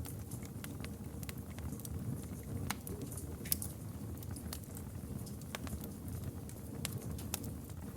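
Campfire burning with a steady low rush and frequent irregular crackles and pops, a few louder snaps among them.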